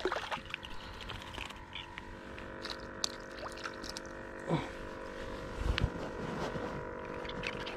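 A steady engine hum with several pitches held evenly, with a few faint clicks and knocks over it.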